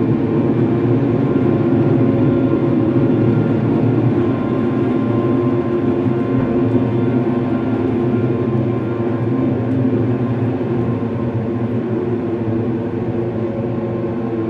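Dark ambient music: a low, steady drone of several sustained tones layered over a deep rumble, with no beat.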